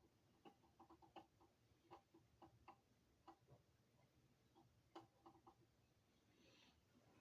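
Near silence broken by faint, irregular light clicks and taps from small tools and parts being handled during delicate soldering work.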